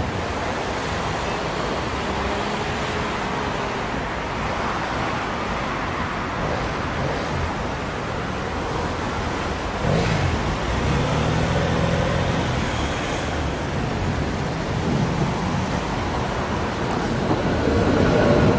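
City street traffic with electric trams running on the street tracks: a steady rush of road noise with a faint motor whine that rises and falls. The sound changes abruptly about halfway in, and it grows louder near the end as a tram passes close by.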